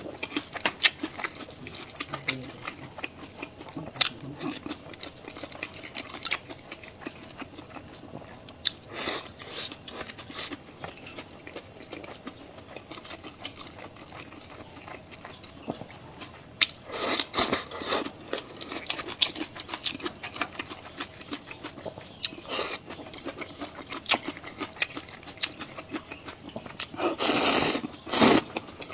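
Close-miked eating: chewing, crunchy bites and small clicks, with louder slurps of hot noodles about a second long, once past the middle and again near the end.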